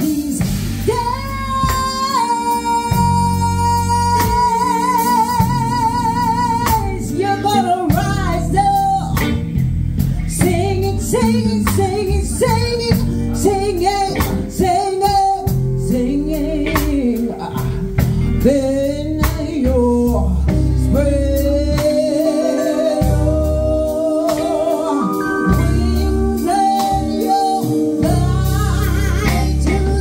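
A woman singing live through a microphone and PA, backed by a band with electric guitar and drums. About a second in she holds one long note with vibrato for around five seconds.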